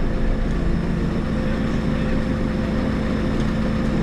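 JCB 3CX backhoe loader's diesel engine running steadily as the machine drives along.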